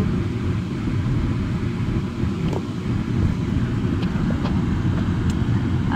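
Car driving slowly, a steady low rumble of engine and tyres.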